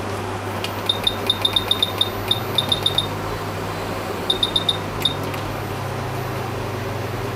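Electronic button beeps from a hot-air rework station's control panel as its setting is stepped: about a dozen quick beeps in a run, then five more about a second later. Under them runs the steady hum and fan noise of the bench equipment.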